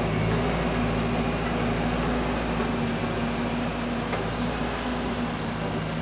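Hamm DV 65 tandem road roller's diesel engine running at a steady hum as the machine drives slowly along the road.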